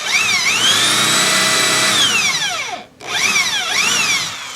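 Power drill driving screws into the door's 2x6 wood: the motor whine rises, holds steady and winds down just before three seconds in, then a second shorter run with the pitch dipping and rising under load.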